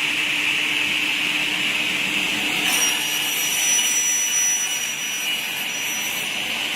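Double-head aluminium cutting saw running with a steady whine; from about three seconds in to about six seconds a shriller hiss joins it as the bottom-up blade cuts through a small aluminium profile bar.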